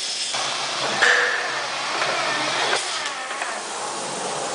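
Polyurea spray gun on a Graco Reactor E-XP2 proportioner firing a test shot into a bucket: a loud spray hiss that jumps up sharply about a second in and eases off after about three seconds, over the steady running of the machine. The shots test whether the pressure imbalance behind error 24 has been cured.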